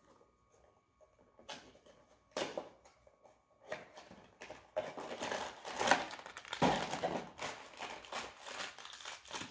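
Shiny foil blind bag of a Funko mystery mini crinkling and rustling as it is torn open by hand, off and on, busier and louder over the second half.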